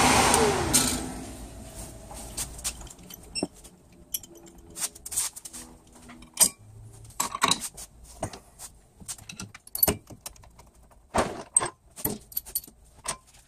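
A Bosch brake lathe spinning down after being switched off, its running noise falling in pitch and fading out over the first second or two. Then a scatter of light metallic clinks and jingles as the vibration damper band is unhooked from the brake rotor and the rotor is handled on the arbor.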